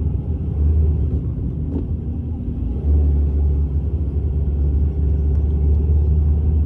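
Steady low rumble of a car's engine and tyres, heard from inside the cabin as it drives slowly.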